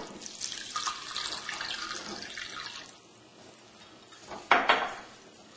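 Water being poured into a pressure cooker pot of washed rice and mung dal, running for about three seconds and then stopping. Near the end come two sharp clinks close together.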